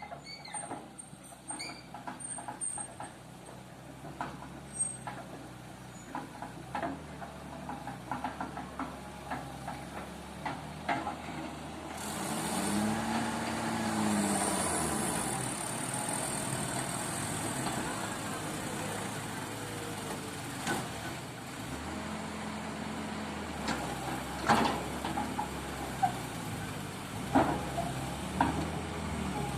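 A motor vehicle's engine running, its pitch rising and falling briefly about halfway through, with scattered knocks and rattles.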